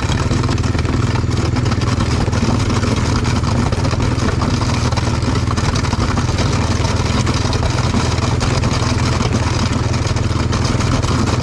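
The single-cylinder four-stroke engine of a 1999 Honda FourTrax 300 4x4 ATV running steadily under load as the ATV pushes snow with a front plow blade.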